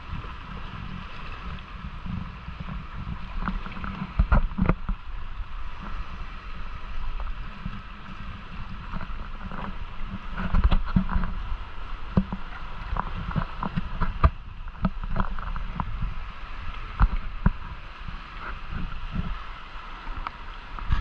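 Kayak paddling: water sloshing and gurgling against the hull, with irregular sharp splashes and knocks from the paddle strokes over a low rumble.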